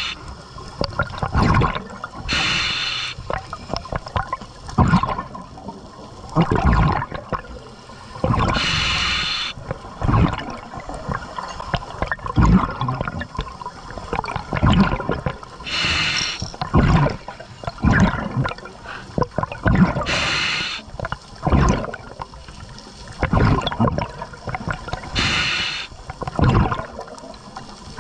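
Scuba diver breathing through a regulator underwater: a short hiss on each inhalation, then a rumbling, gurgling rush of exhaled bubbles, repeating every few seconds.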